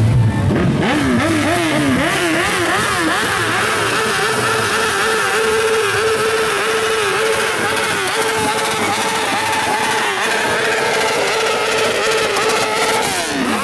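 Several sport motorcycles being revved while standing still, with quick overlapping blips of the throttle. Then one engine, a Honda CBR's, is held at high revs for several seconds and drops back near the end.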